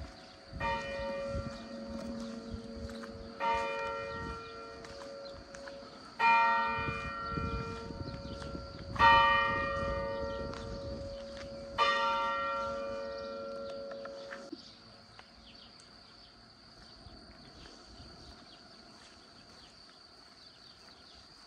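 A bell, like a church bell, struck five times about three seconds apart, each stroke ringing on and fading; after the last it dies away, leaving faint steady rain.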